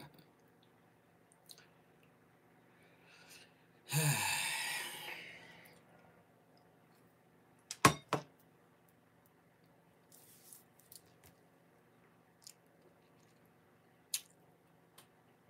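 A man's loud breathy vocal sound about four seconds in, tailing off over a couple of seconds. Just before eight seconds come two sharp knocks close together, like a hard object set down on a table, followed by a few faint clicks.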